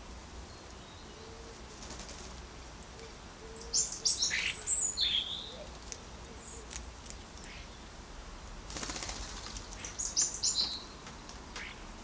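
Common starlings at a feeder: two short bursts of high squeaky chirps and whistles, about four seconds in and again about ten seconds in, with a brief flutter of wings just before the second burst.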